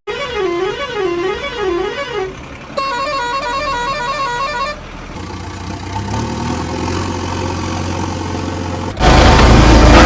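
A warbling horn tone rising and falling about twice a second, then a quick stepped musical horn tune, followed by a vehicle engine running, which gets much louder about nine seconds in.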